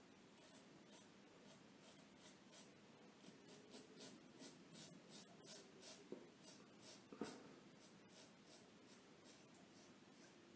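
A 15/16 Cichy Custom Knives straight razor scraping through stubble and lather in short, quick strokes, about two to three a second, faint and crisp.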